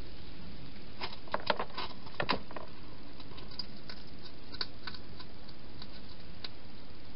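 Wild hedgehog eating from a bowl inside a clear plastic feeding box: a quick run of small clicks and crunches about a second in, then a few scattered ticks, over a steady hiss.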